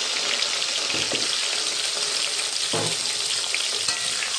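Salt-and-turmeric-coated potato pieces sizzling steadily in hot oil in a kadai, with fine crackling.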